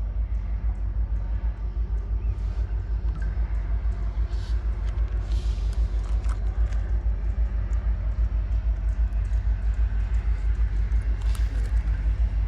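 Diesel freight train led by a Union Pacific EMD SD70ACE with a GE Tier 4 locomotive trailing, moving past with a steady low rumble and scattered light clicks and squeals from the wheels and cars.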